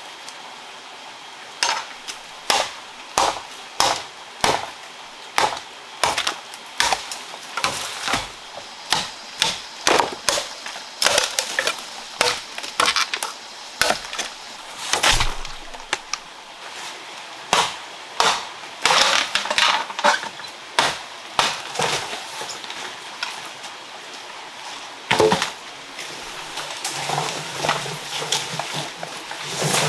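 A large knife chopping into green bamboo culms: repeated sharp, woody strikes about one or two a second, with a denser run of cracking and splintering in the middle and one heavier knock late on.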